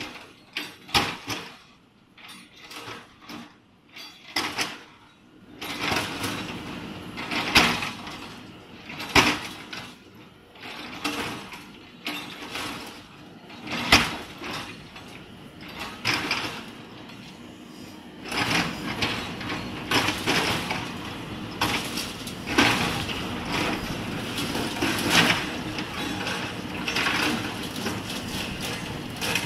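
JCB 3DX backhoe loader's diesel engine running under load as its rear bucket pushes into a collapsed concrete slab, with repeated sharp cracks and knocks of breaking concrete and rebar. The engine grows louder about two-thirds of the way through.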